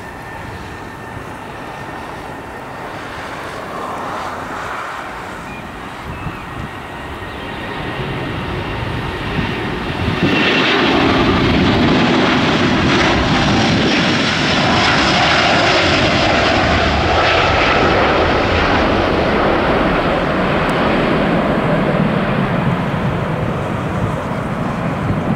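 Airbus A330-900neo's two Rolls-Royce Trent 7000 turbofans at take-off thrust during the take-off roll and climb-out: a steady jet engine noise that builds, jumps louder about ten seconds in, and stays loud, easing only slightly near the end.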